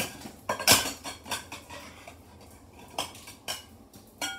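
Dishes and cutlery clattering and clinking as they are moved about while a plate is sought. A string of sharp knocks, loudest about a second in, ends in a short ringing clink.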